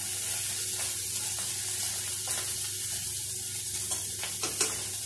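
Small fish pieces shallow-frying in oil in a kadhai, sizzling steadily, with a few scrapes of a steel spatula against the pan as the pieces are turned, about two seconds in and again near the end.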